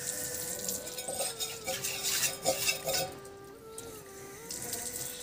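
Metal pots and a lid clinking and scraping for about two seconds, starting about a second in. Faint steady tones sound behind them.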